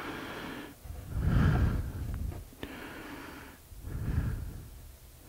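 A man's breathing close to the microphone: three noisy breaths, the first the loudest, with a faint click about two and a half seconds in.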